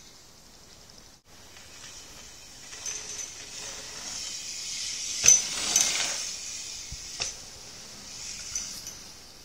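BMX bike riding over a dirt pump track: tyre-on-dirt rolling noise swells as the bike passes close, peaking around the middle, with a few sharp metallic clinks from the bike, the loudest about five seconds in. A steady high hiss underlies it.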